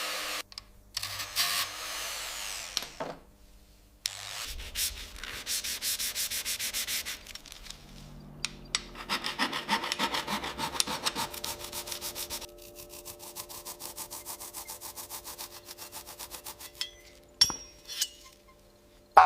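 Hand abrading of rusted metal gun parts, such as sanding, filing or scrubbing: repeated back-and-forth rubbing strokes, several a second, in a few short stretches with abrupt breaks between them. A sharp click comes near the end.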